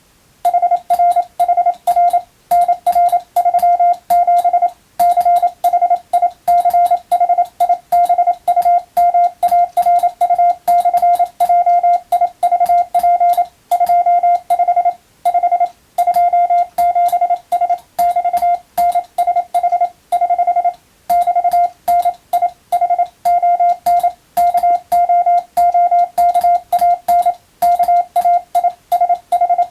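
Hand-keyed Morse code (CW): one steady beep tone keyed on and off in fast dots and dashes, with short gaps between characters, starting about half a second in.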